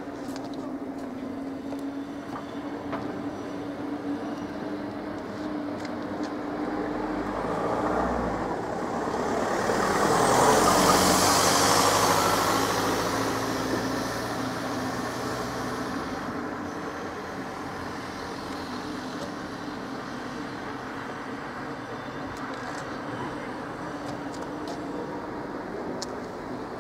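Street traffic: a steady engine hum underneath, and a motor vehicle passing close by, building up, loudest about ten to twelve seconds in with a rush of tyre noise, then fading away.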